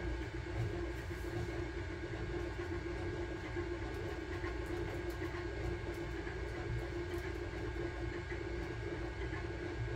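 Sunlu Terminator 3 3D printer running mid-print: a steady mechanical hum with a constant mid-pitched tone.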